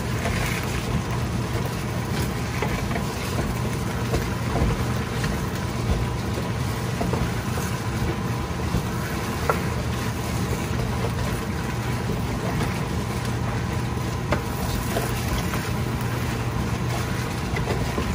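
Fried rice with egg sizzling in a pan and being stirred with a spatula, with scattered small scrapes and taps, over a steady low hum.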